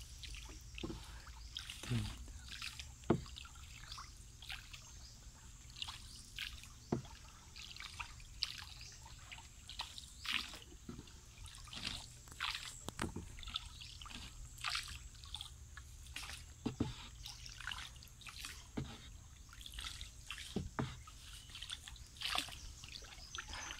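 A hand paddle working a small wooden boat through still canal water: irregular light splashes and trickling drips as the blade dips and lifts.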